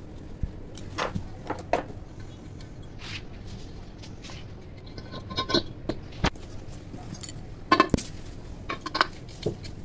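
Metal parts of an overlock sewing machine being handled on a workbench: scattered clinks and knocks from a screwdriver, screws and the aluminium base tray, the loudest knocks coming about eight seconds in.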